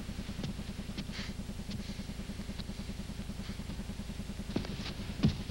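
An engine running steadily with a low, rapid, even throb, a few faint clicks over it and a thump near the end.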